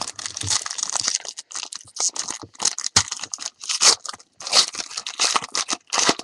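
A trading-card pack's foil wrapper being torn open and crinkled, an irregular run of crackling and tearing with a sharp click about three seconds in.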